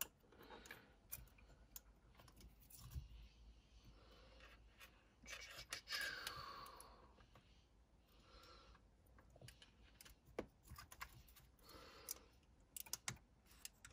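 Faint, sparse clicks and scratches of plastic wiring connectors being worked loose by hand from a car's steering-column clock spring, with a breathy falling sound about six seconds in.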